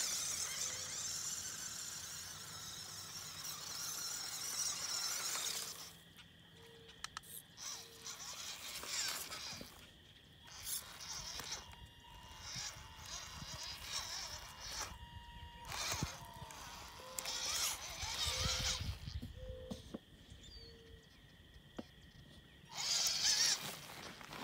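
Small brushed electric motor and gearbox of a WPL C14 RC crawler whining as it drives in second gear. It runs steadily for the first few seconds, then comes in short stop-start bursts, with a loud burst near the end.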